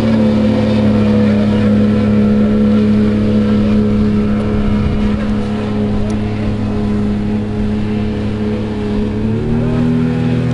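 Powerboat engine running at speed: a steady, loud droning note whose pitch dips slightly at the start and rises again near the end.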